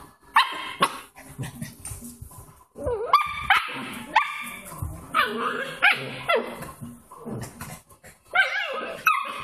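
Dalmatian puppy yapping and whining: a string of high-pitched barks, some drawn out over about a second with the pitch sliding.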